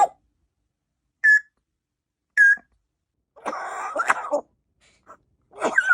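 African grey parrot coughing: two short high chirps, then a harsh, rasping cough lasting about a second, and another cough starting near the end.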